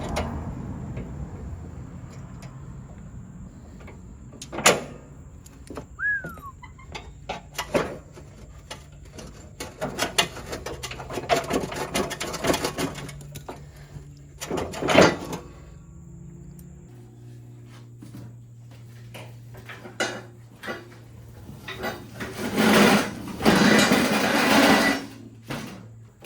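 Metal clanks, knocks and clicks from a riding mower's detached steel cutting deck being handled, with a short squeak and louder scraping near the end as the deck is dragged out.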